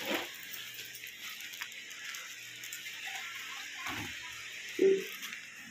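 Faint background noise, then a knock and a short, louder clank from the brown metal house gate being handled, about four and five seconds in.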